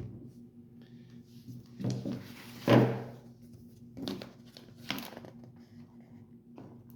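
Handling noises as a portable power station and a Kindle charging cable are worked by hand: five short knocks and rustles, the loudest about three seconds in, over a low steady hum.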